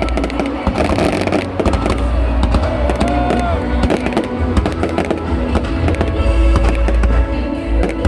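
Fireworks bursting in rapid succession, a dense run of bangs and crackles with deep booms, over loud music from the display's sound system.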